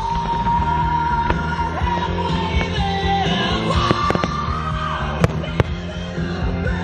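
Music with a singing voice played over outdoor loudspeakers for a fireworks show, crossed by sharp bangs of firework shells bursting, the two loudest about five seconds in.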